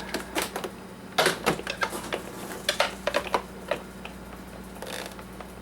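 Plastic parts of a coffee maker clicking and knocking as a tough little cap is worked loose by hand, in irregular bunches of sharp clicks.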